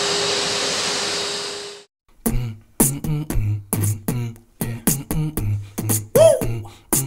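Wet/dry vacuum cleaner running with a steady whine, cutting off abruptly about two seconds in. After a brief silence, a beatboxed beat starts: a regular pattern of low kick-like thumps and short hissing hi-hat strokes.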